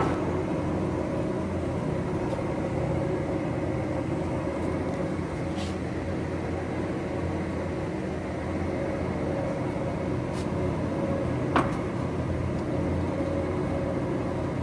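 Leopoldo Pontiggia SFE/CC 950 centre lathe running, its 22 kW drive and gearbox giving a steady hum. There are a few faint clicks and one sharper click late on.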